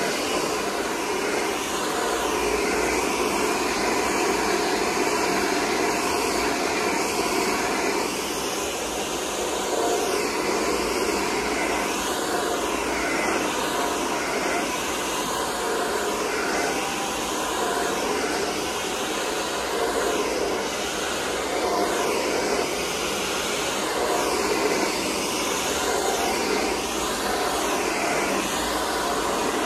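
Handheld hair dryer blowing steadily on freshly washed natural hair as it is combed through, its rush wavering as the dryer is moved about the head.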